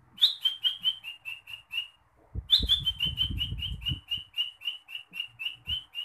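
A man whistling an imitation of a green leafbird (cucak hijau) song: two runs of quick, evenly repeated high chirps, about five a second, each run opening on a slightly higher note. There is a short pause about two seconds in, and some low muffled noise under the start of the second run.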